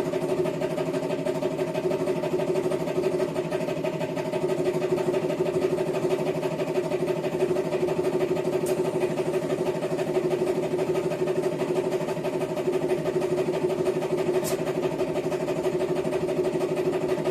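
A motor running steadily at one constant speed, a continuous hum that neither rises nor falls.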